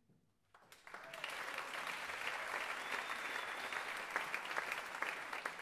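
Audience applause breaking out about half a second in, after a moment of near silence at the end of a piece, swelling quickly and then continuing steadily.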